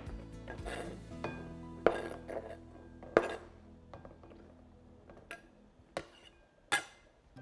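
Chef's knife scraping and tapping chopped olives off a cutting board into a bowl: about five sharp clinks and knocks, spaced out, over soft background music.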